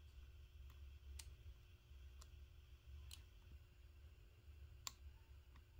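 Near silence: a steady low hum with about six faint, sharp clicks at uneven intervals, the loudest near the end.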